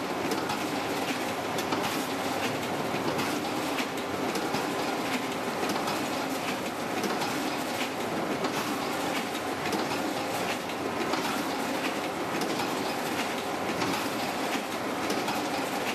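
Boleto sea bream gutting machine running, a steady mechanical clatter dense with fast irregular clicks and rattles as fish are fed through it.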